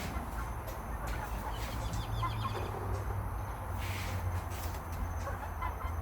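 Small flock of silkie and silver laced Wyandotte chickens making soft, scattered clucks and chirps, with a quick rattling run of notes about two seconds in, over a steady low rumble.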